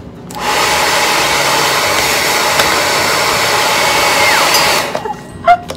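JML hand-held hair dryer switched on and blowing steadily into a plastic water bottle for about four and a half seconds, then switched off. A single sharp knock follows about half a second after it stops.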